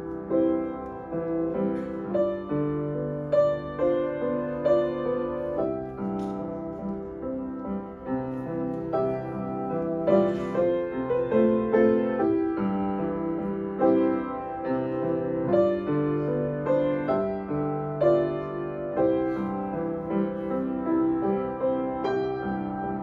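Solo piano playing, its chords and melody notes struck and left to ring.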